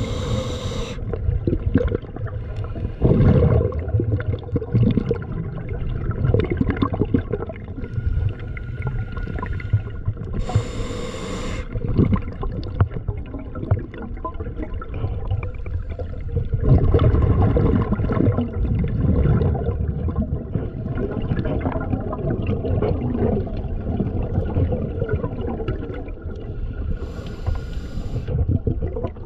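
Water sloshing and gurgling over a muffled low rumble, with three short hissing bursts: one at the start, one about a third of the way in, and one near the end.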